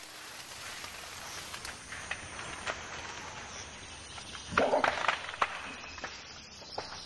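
An animal calling over a steady outdoor background hiss with scattered light clicks; the calls are loudest about four and a half to five and a half seconds in.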